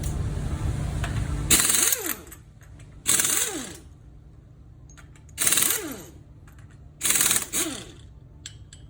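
A power tool run in four short bursts, each trigger pull followed by a falling whine as it spins down. A steady low hum stops as the first burst starts.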